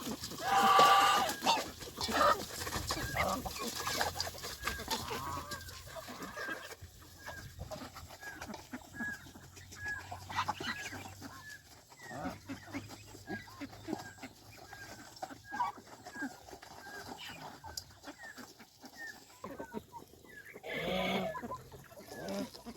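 Chickens clucking at feeding time, a steady string of short calls several times a second. A louder, drawn-out bird call comes about a second in and another near the end.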